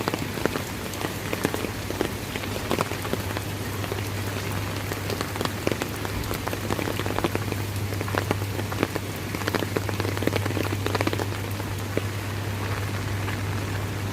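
Steady rain, with dense, sharp drop impacts close to the microphone, over a low steady hum.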